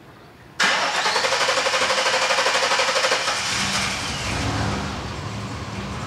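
Warm 7.4 L Vortec (L29) big-block V8 being cranked by its starter for about three seconds before it fires and settles into running. The long crank on a warm start is the hard-start fault typical of this engine, put down to leaking fuel injectors and fuel pressure regulator.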